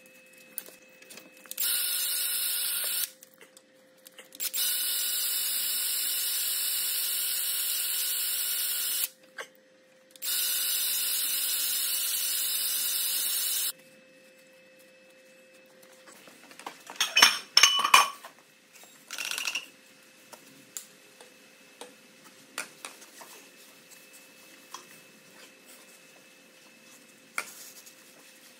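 A pressurised spray hissing steadily in three long bursts while the truck's drum brake assembly is cleaned; each burst starts and stops abruptly. It is followed a few seconds later by a quick cluster of sharp metallic knocks and then light handling clatter.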